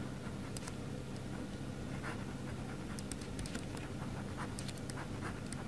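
Ballpoint pen writing on paper: short strokes at irregular intervals, a quick cluster of them about three seconds in, over a steady low hum.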